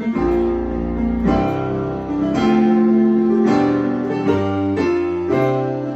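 Layered keyboards (piano, Rhodes and synth blended) playing a bright, uplifting major chord progression that starts on the fourth degree and ascends, one sustained chord about every second.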